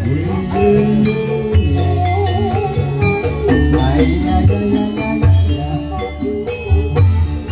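Live jaranan campursari band playing: electronic keyboard, Javanese kendang drums and metallic percussion keeping a steady beat, with a singer's wavering vocal line over it.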